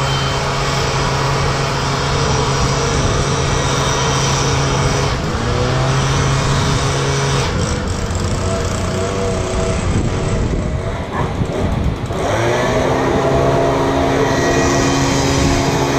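Stihl handheld two-stroke leaf blower running at speed, its engine pitch shifting as the throttle changes; it eases off a little after ten seconds in and revs back up near twelve seconds.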